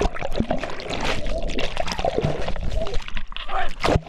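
Creek water rushing and splashing down a natural rock slide, with scattered voices calling out.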